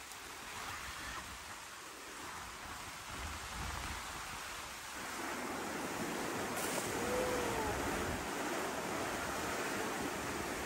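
Heavy rain pouring down in a storm, a steady hiss that grows louder about halfway through.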